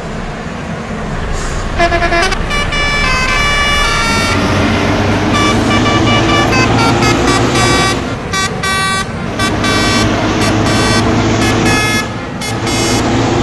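Bus multi-tone musical air horn (Indonesian 'telolet' horn) playing a stepped tune of short notes that change pitch, starting about two seconds in, over the low running of the bus's diesel engine. The horn breaks off briefly twice, around eight seconds and near the end.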